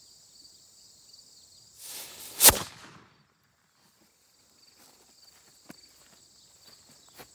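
Mini forged black-powder cannon firing: a short hiss as the fuse burns into the charge, then one sharp, very loud bang about two and a half seconds in. Insects buzz steadily in the background.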